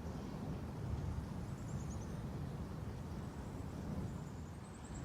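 A low, steady rumbling roar from the sky that sounds like a jet, though no aircraft is in sight, mixed with gusty wind. Twice a bird gives a short, fast run of high chirps that falls in pitch.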